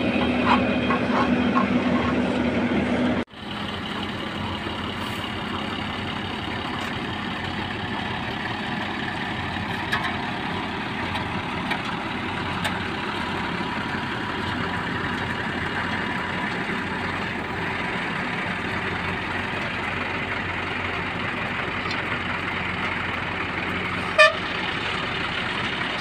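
Diesel engines of a tipper truck and an asphalt paver running steadily while the truck unloads into the paver, a little louder for the first three seconds. A short vehicle horn toot sounds near the end.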